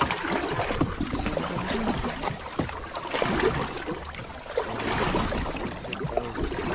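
Water rushing and lapping against the hull of a small moored fishing boat (bangka) in a strong current, an irregular wash with scattered small slaps and knocks.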